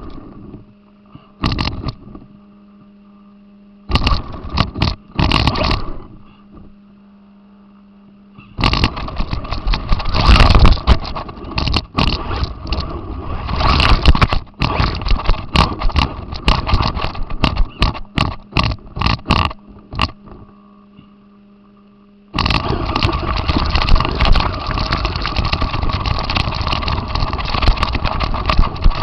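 Radio-controlled car driving in bursts of throttle, its drivetrain noise full of rattles and knocks as it goes over rough ground. Quieter pauses between the bursts hold a steady low hum. From about 22 seconds in it runs continuously.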